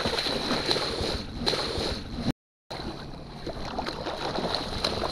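Water splashing and sloshing as a hooked catfish thrashes at the surface beside the boat, most busily in the first couple of seconds, with the sound breaking off for a moment shortly after.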